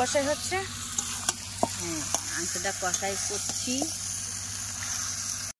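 Chicken pieces sizzling in oil and spices in a metal karai over a wood fire, stirred and scraped with a spatula at the kosha stage, the meat being dry-fried in its masala. A few short, faint pitched calls sound in the background.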